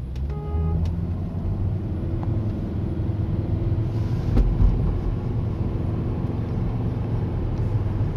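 Steady engine and road rumble heard from inside a 2005 Volvo S80 turbo while driving, with a short pitched tone about half a second in.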